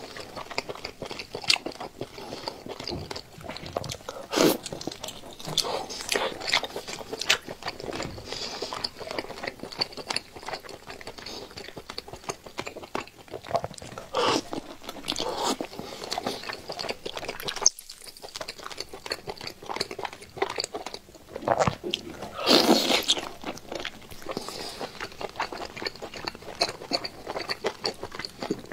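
Mouth eating sounds of a man biting and chewing whole braised octopus: continuous wet crackly chewing, with louder bites about four, fourteen and twenty-two seconds in.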